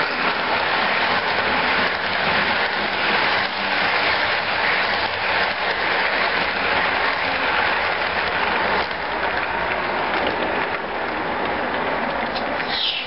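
Hopper cars of an HO scale model train rolling past, a steady rushing clatter of small wheels on the track. A brief high squeal falls in pitch near the end.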